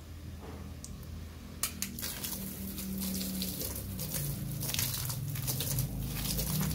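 Water spraying and splashing onto the leaves of a potted plant: a crackling hiss of droplets that starts about one and a half seconds in and grows louder. A low steady hum runs underneath.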